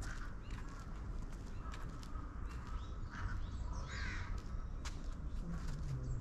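Crows cawing, about three harsh calls spread across a few seconds, over a low outdoor rumble and scattered footstep ticks.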